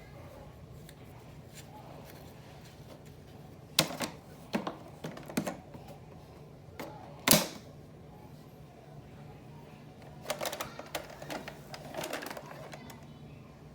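Scattered sharp clicks and knocks over a faint steady hum, the loudest knock about seven seconds in and a rattling cluster of clicks near the end.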